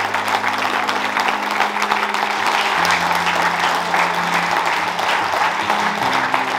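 A room full of men applauding steadily. Soft background music holds sustained low chords underneath, changing chord twice.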